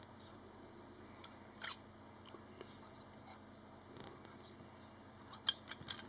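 Faint metal clicks and a light scrape as Knipex pliers grip and squeeze a silver fish knife to flatten it: one short scrape about a second and a half in, and a quick run of small clicks near the end.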